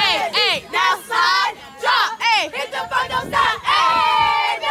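A group of young women shouting and whooping in high-pitched, repeated chant-like calls to egg on a dancer, ending on a longer held shout near the end.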